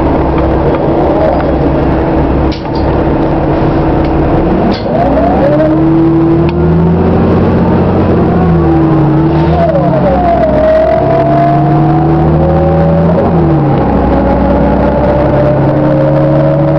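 City bus accelerating, heard from inside the cabin: the engine and transmission whine climb steadily in pitch and drop back at each gear change, a few times over.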